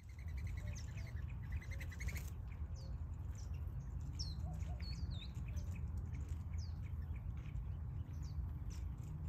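Small birds chirping, with many short high calls and a brief warbled phrase, and a rapid trill in the first two seconds, over a steady low rumble.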